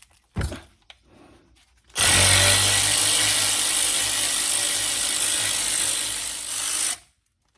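Small impact gun with a 7 mm hex socket running steadily for about five seconds, undoing a brake caliper slide pin, then cutting off abruptly. A short click comes shortly before it starts.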